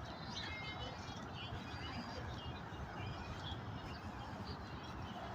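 Small birds chirping, many short calls overlapping, over a steady low rumble of outdoor background noise.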